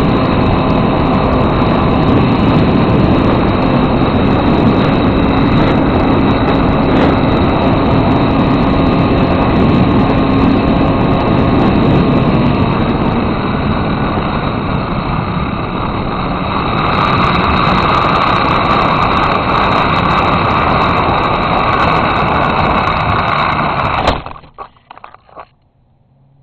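Steady rush of wind and the whine of a small electric motor and propeller, heard from a camcorder riding on a flying RC foam airplane. It breaks off suddenly with a knock near the end.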